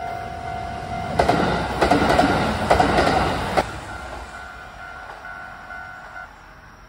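Japanese railway level-crossing warning bell ringing steadily as a train passes, its wheels clattering over the rails from about a second in until about three and a half seconds in. The bell stops shortly before the end.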